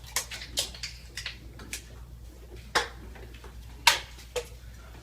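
Irregular sharp clicks, about seven over a few seconds, over a faint steady low hum.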